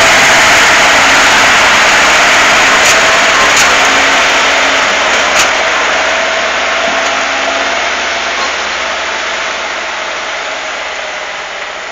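Diesel engine of an LKT forestry skidder running as the machine drives off through mud, fading steadily as it moves away. A few short sharp clicks are heard a few seconds in.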